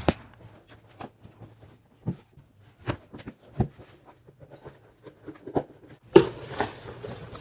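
Cardboard shipping box being handled while it is opened: scattered light knocks and taps, then a louder stretch of cardboard rubbing and scraping about six seconds in.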